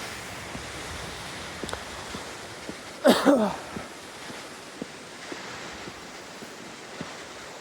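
Steady rush of a waterfall, with a man's short vocal whoop falling in pitch about three seconds in.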